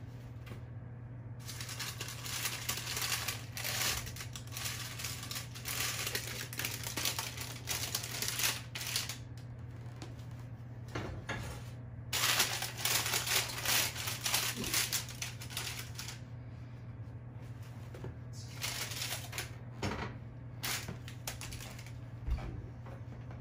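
Parchment paper crinkling and oven mitts rustling as a hot sourdough loaf is lifted out of a cast-iron Dutch oven by its paper sling, in irregular crackly stretches, over a steady low hum.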